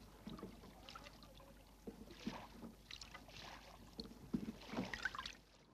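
Faint rowboat sounds on calm water: irregular splashes of oars and short wooden knocks, coming more often in the second half.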